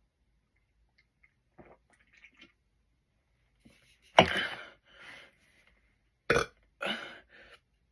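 A person burping several times: one long, loud burp about four seconds in, then two shorter ones a little after six and seven seconds.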